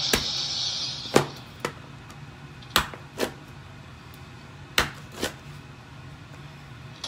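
Chef's knife chopping through crispy fried pork belly onto a plastic cutting board: sharp knocks, mostly in pairs, repeating every one and a half to two seconds, with a brief crunching hiss as the blade first cuts in.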